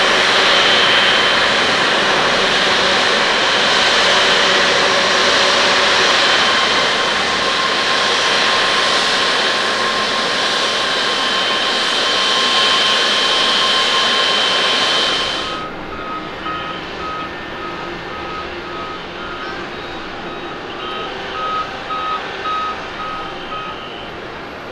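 Japan Airlines Boeing 787-9's jet engines running loud and steady with high whines as the airliner rolls out on the runway after landing. The sound cuts off abruptly about 15 seconds in. After that there is quieter outdoor background with a short electronic beep repeating about twice a second for several seconds.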